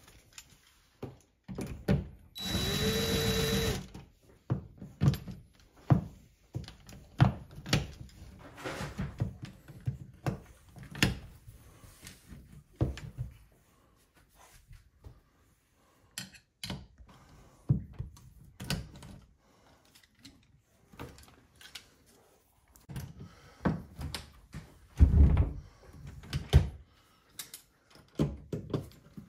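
Cordless DeWalt drill-driver spins up and runs for about a second and a half, driving a screw into the wall. This is followed by scattered sharp clicks and knocks of hand tools working against the wall, with the loudest knocks near the end.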